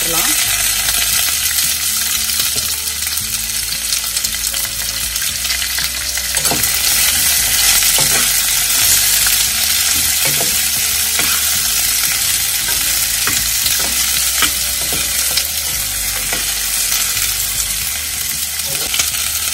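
Freshly added chopped ivy gourd sizzling in hot oil in a stainless steel kadai. It is stirred with a metal spoon that clicks and scrapes against the pan now and then.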